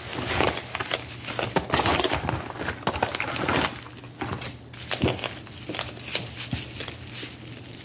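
Holographic plastic packaging crinkling and rustling as it is handled, busiest over the first few seconds, then fainter, scattered crackles.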